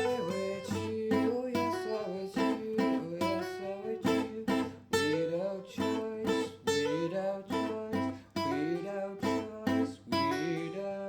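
Acoustic guitars strumming a steady rhythm, with a melody line over them that slides up and down in pitch.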